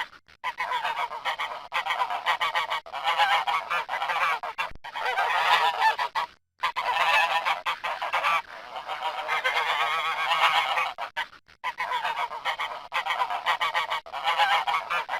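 Geese honking, many calls overlapping in a dense, continuous chorus that breaks off briefly three times.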